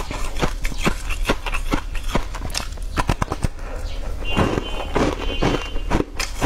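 Close-miked chewing of crunchy food, a crumbly green ball: irregular crisp crackles about three times a second, with a denser, wetter stretch of chewing about four to five seconds in.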